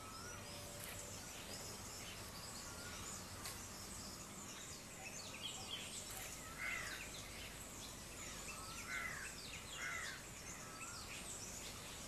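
Faint forest ambience: many short bird chirps and calls over a steady hiss, busiest in the middle.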